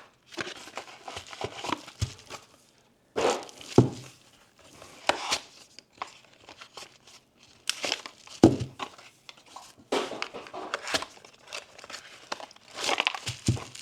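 Plastic packaging being crinkled and torn open by hand as LiPo battery packs are unwrapped, in irregular bursts of crackling with short pauses between.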